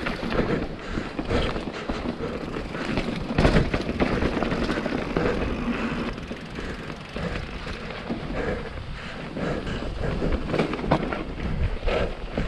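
Mountain bike ridden over a rough, rocky trail: tyres grinding over rock with frequent knocks and rattles from the bike, over a constant low rumble on the action camera's microphone.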